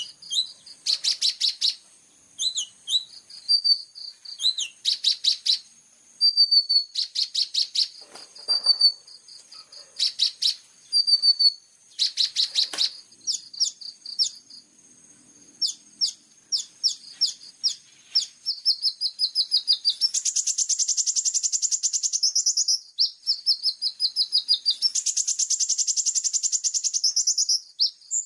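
Small songbird singing on a bird-training 'masteran' recording: bursts of rapid, sharp high chirps and short whistled notes, then two long fast rattling trills, the first starting about two-thirds of the way in and the second near the end.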